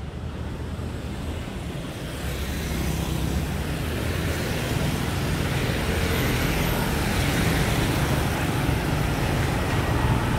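City street traffic, mostly motorbikes and scooters with a car among them, rising steadily in loudness as a wave of them comes up the road and passes close by.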